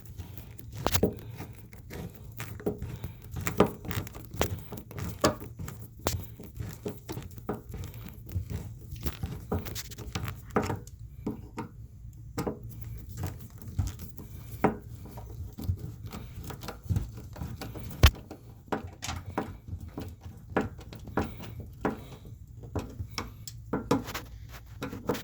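Screws of a bathtub overflow cover plate being tightened by hand, squeezing its new rubber gasket: irregular small metallic clicks and scrapes, with one sharper knock about three quarters of the way through.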